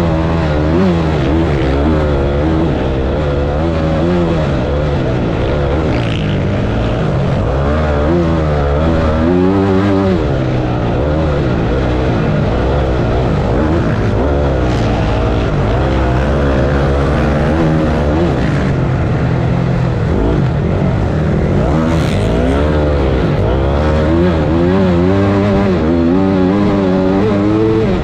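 Motocross bike's engine heard from an onboard camera, its pitch rising and falling again and again as the throttle is opened and closed.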